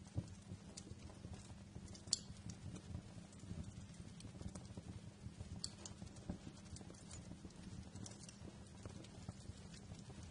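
Wood fire crackling: irregular small pops and snaps over a low, steady rumble of burning, with a sharper pop just after the start and the loudest one about two seconds in.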